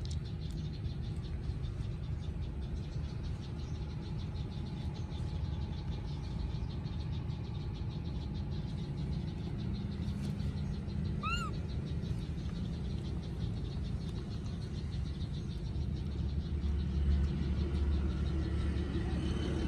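Outdoor ambience: a steady low rumble, heavier near the end, with one short high call that rises and falls about halfway through.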